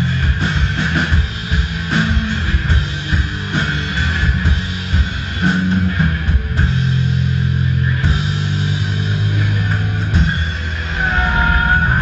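A live rock band plays loud, distorted electric guitars over a drum kit. Near the end, a high wavering note rises above the band.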